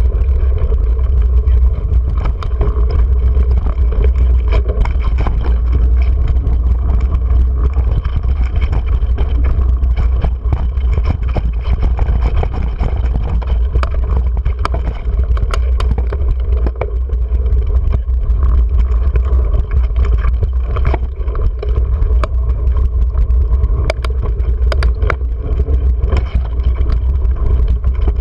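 Wind and trail noise on a mountain bike rider's action camera: a loud, steady low rumble with frequent sharp clicks and rattles as the bike rolls over rough dirt and rocks.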